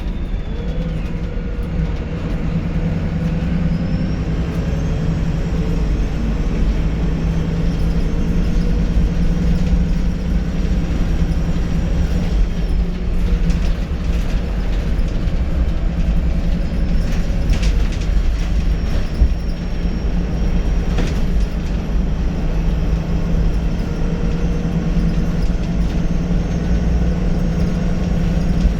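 VDL SB200 bus engine running under way with a steady low drone and a faint high turbo whistle above it, the whistle rising about four seconds in. A few brief rattles or clicks come in the second half.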